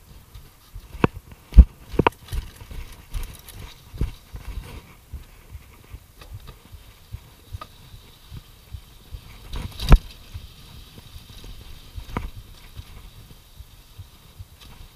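Mountain bike rattling and clattering down a rough downhill trail, with sharp knocks as it hits bumps, the loudest about a second and a half in and again near ten seconds, over a low rumble of wind on the microphone.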